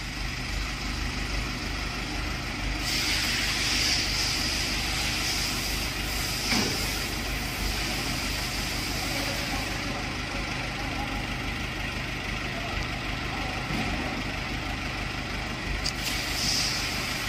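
Mobile LED stage truck running steadily as its hydraulics fold the side panel down into a stage floor. A higher hiss sets in about three seconds in and fades around ten seconds, then returns near the end, with a single knock about six seconds in.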